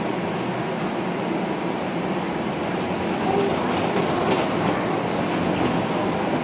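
Toronto TTC streetcar running, a steady even rail noise, with faint voices in the background.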